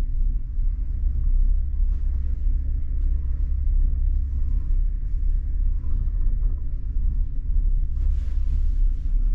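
Steady low rumble of a gondola lift cabin riding up its cable, with a brief hiss about eight seconds in.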